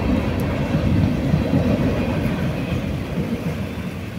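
Tail end of a freight train of gondola cars rolling past: a steady rumble of steel wheels on the rails that fades toward the end as the last car goes by.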